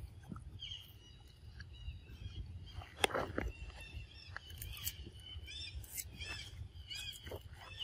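Macaques biting and chewing pieces of green fruit, with a sharp crunch about three seconds in and scattered smaller clicks, over repeated high, arching chirps from animal calls.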